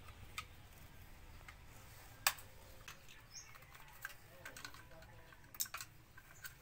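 Scattered light clicks and small knocks of hard plastic as a toy pistol's plastic shell is handled and pried apart, with one sharper snap a little past two seconds in and a quick run of clicks near the end.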